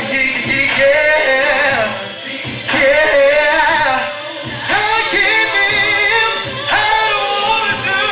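Male R&B singer singing live into a handheld microphone over backing music, his voice sliding and wavering through sung runs.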